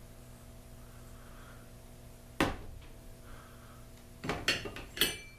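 Clicks and clinks of small hard parts being handled: a single sharp knock about two and a half seconds in, then a quick cluster of clinks near the end.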